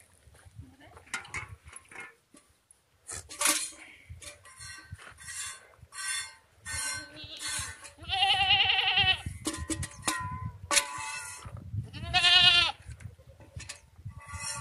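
Goats bleating: two long, quavering bleats stand out, one about eight seconds in and one about twelve seconds in. Between them runs a series of short, sharp noisy strokes about every half second.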